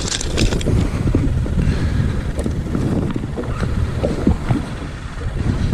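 Wind buffeting the microphone in a steady low rumble, with a few light clicks and knocks from handling scattered through it.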